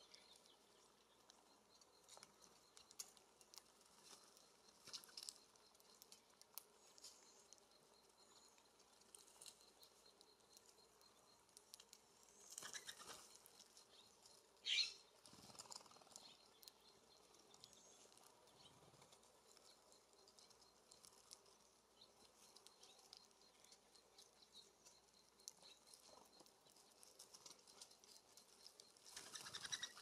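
Faint small clicks and taps of a black-headed grosbeak pecking at a seed cake in a wire cage. About halfway through comes a single short bird call falling in pitch, and near the end a brief rustle of wings as another bird arrives.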